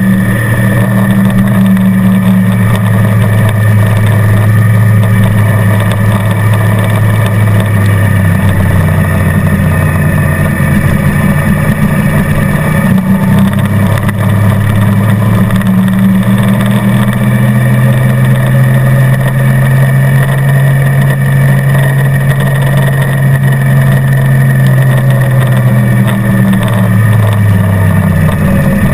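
Motorcycle engine running hard at track speed, heard from a mount on the bike. Its note steps down about eight seconds in, climbs slowly for several seconds from about halfway, and drops again near the end as the rider works the throttle and gears.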